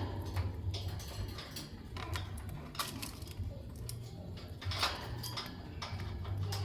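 Lovebirds making irregular short, sharp chirps and clicks, a few of them louder, over a low steady hum.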